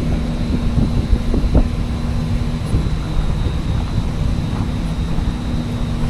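Car running, with a steady low rumble and hum of engine and road noise heard from inside the cabin. The hum drops out briefly in the middle, and there are a few low knocks in the first couple of seconds.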